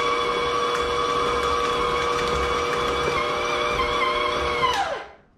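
KitchenAid stand mixer running steadily with a high motor whine as its flat beater works a wet, sticky dough. Near the end it is switched off, and the whine falls in pitch and dies away.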